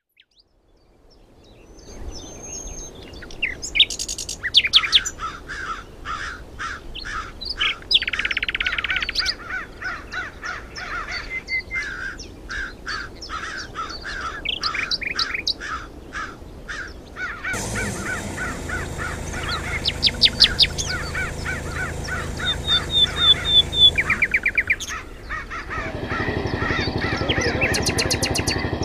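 A chorus of birds calling: many short calls repeated in quick succession. A steady hiss joins them for several seconds past the middle.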